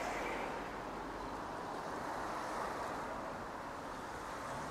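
Street traffic: cars passing on a city road, their tyre and engine noise swelling near the start and again a couple of seconds in.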